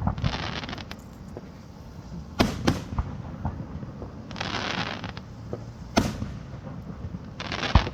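Aerial fireworks display: shells bursting with about four sharp booms, two in quick succession near the third second, with stretches of crackling between them.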